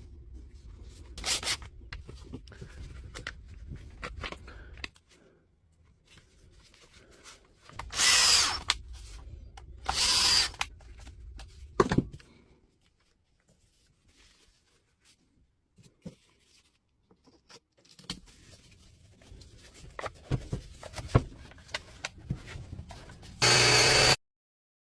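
Workbench sounds of a cordless rotary hammer being worked on: clicks, taps and rubbing of parts and tools. Three short, loud bursts of a power tool running break in, the last one near the end.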